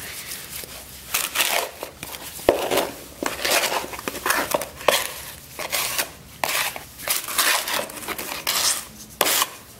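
A steel margin trowel stirring and scraping wet concrete patching mix in a cut-down metal paint can. The strokes come irregularly, about one or two a second, as metal scrapes and knocks on metal through the gritty mix.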